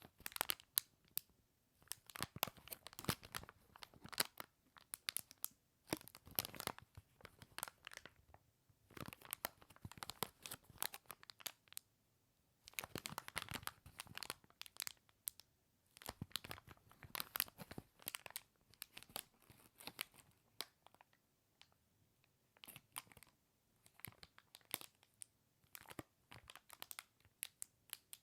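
A packaging bag crinkling and crackling as it is handled, in bursts of dense crackles a second or two long with short pauses between them.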